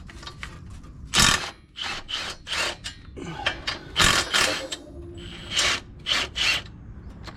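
A run of short rasping scrapes and rubs, about nine of them at uneven spacing, some close together, like hand work with a tool on metal parts.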